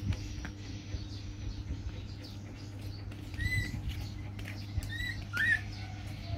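Baby monkey giving three short, high squeaks in the second half, over a steady low hum with a few faint taps.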